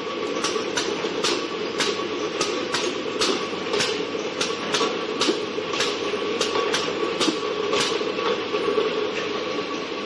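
Automatic paper-can crimping and seaming line running: a steady conveyor and machine hum with a faint steady whine, broken by short sharp ticks about two a second that stop near the end.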